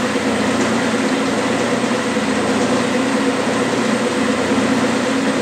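Clausing metal lathe running at 600 rpm with a steady hum, while a center drill in the tailstock drill chuck cuts into the end of a spinning brass bar.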